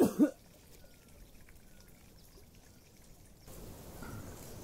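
Small stream trickling, faint, with a brief loud burst right at the start; about three and a half seconds in, a louder, steady hiss of running water comes in.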